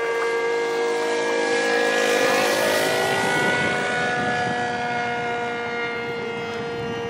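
Radio-controlled model airplane engine running in flight, a high-pitched steady drone that swells and bends in pitch as the plane passes, loudest a little over two seconds in.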